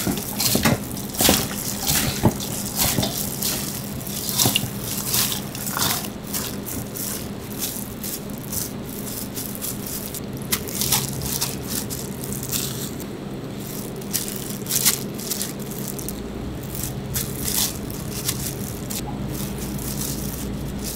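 Plastic-gloved hands tossing and squeezing shredded vegetables and diced cheese in a large stainless steel mixing bowl: crinkly rustling with many sharp clicks and crackles, busiest in the first several seconds, over a steady low hum.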